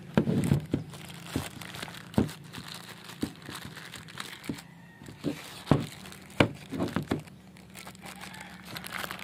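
Thin plastic packaging crinkling as it is handled, with irregular sharp crackles.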